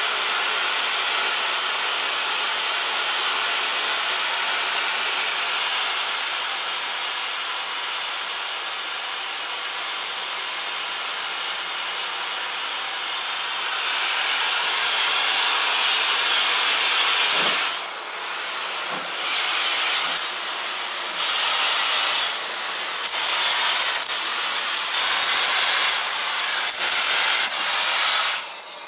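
Steam locomotives: a long steady hiss of steam escaping around the cylinders. About two-thirds of the way in it gives way to slow, separate chuffs, roughly one every second and a half, as a locomotive starts to move off.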